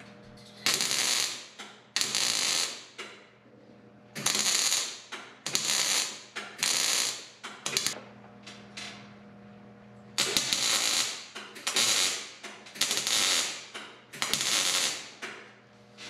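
MIG welder tack-welding a repair on a Farmall M's steel grille: about nine short crackling bursts, each a second or less, in groups with pauses between, over a steady low hum.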